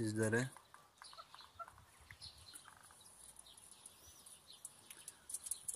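Quail in a coop calling, scattered short chirps and calls.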